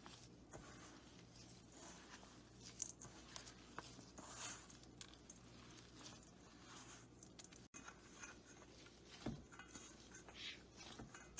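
Hands kneading soft sweet-potato dough in a stainless steel bowl: faint, irregular squishing and patting.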